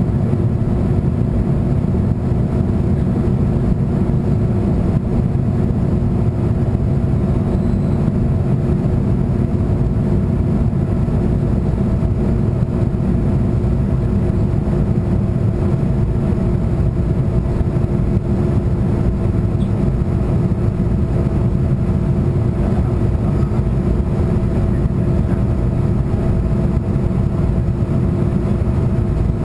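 Airliner cabin noise in flight: the jet engines and rushing air make a steady, loud low drone with a faint constant hum in it.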